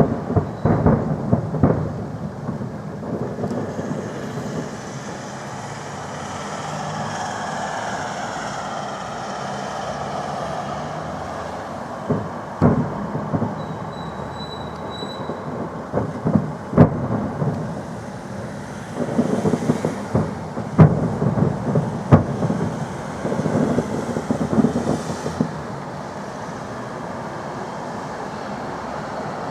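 Fireworks salute exploding: a cluster of sharp bangs near the start, a few single bangs around the middle, and a dense run of bangs in the last third, over a steady rumbling background noise.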